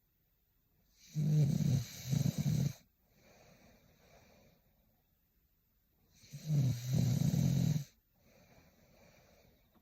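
A woman snoring in her sleep. There are two loud, rasping snores about five seconds apart, each followed by a softer breath out.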